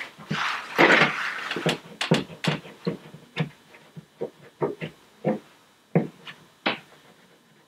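Irregular light clicks and taps from small parts of a Beretta A400 shotgun being handled and cleaned by hand, after a short rubbing sound in the first second.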